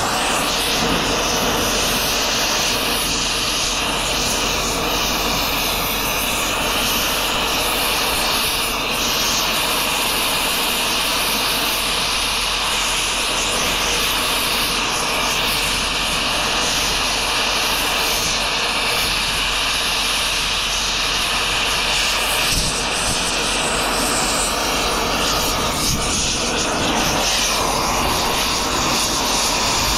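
Oxy-fuel cutting torch hissing steadily as its flame heats and cuts into the 3 to 4 inch steel shaft of an electric motor.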